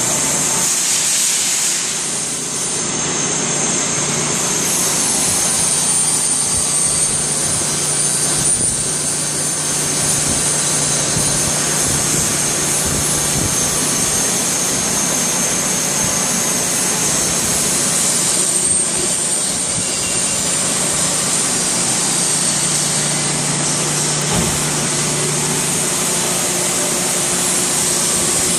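CNC lathe running, a steady machine noise with a low hum and a high whine that shifts in pitch about five seconds in and again around eighteen seconds.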